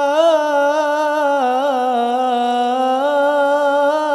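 A male voice sings a solo Arabic sholawat into a microphone, holding one long note without a break. He ornaments it with quick melismatic turns, dips to a lower note about halfway through and climbs back.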